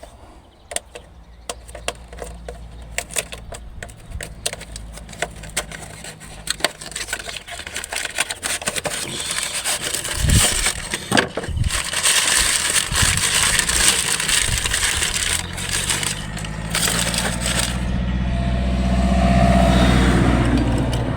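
Irregular clicks, taps and knocks of hands fitting an ignition coil and handling parts in a car's engine bay, over a steady low hum. A vehicle engine's hum swells during the last few seconds.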